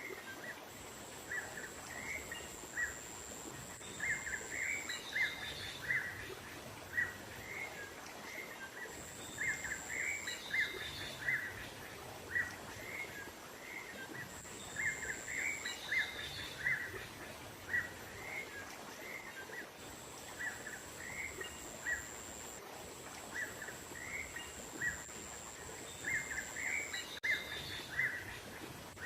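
Small-bird lure call: clusters of short, high chirps repeating in a loop every five or six seconds over a soft natural background, with a thin steady high tone that comes and goes.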